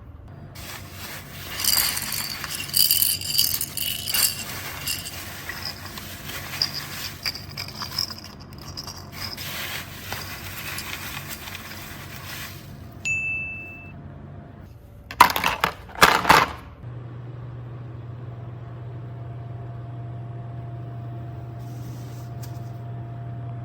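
Small hard toys being handled, scraping and clinking, with a few sharp knocks about fifteen seconds in, then a steady low hum.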